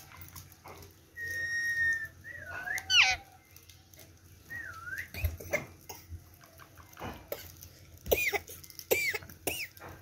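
Rose-ringed (Indian ringneck) parakeet calling in short whistles and chirps: a held whistle about a second in, several quick up-and-down notes, then three arched chirps near the end, with a few light taps between them.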